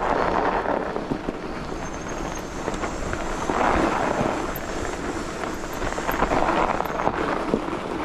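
Fat bike tyres rolling over packed snow, a steady crunching crackle that swells and fades as the rider pedals, with wind rushing on the microphone.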